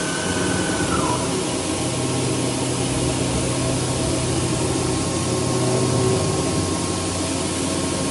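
Doosan DB25CM CNC horizontal boring and milling machine running under power, a steady mechanical hum and hiss with a whine that drops in pitch about a second in. A lower hum comes in from about two seconds and drops out near six.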